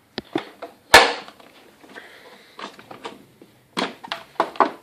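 Plastic clicks and knocks from handling a Hoover PowerScrub carpet cleaner at its handle release. One loud knock comes about a second in, and a quick run of clicks comes near the end.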